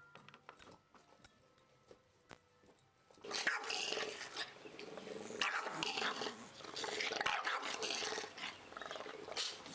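A few faint clicks for about three seconds, then dogs growling loudly and continuously: an English bulldog and a French bulldog face to face.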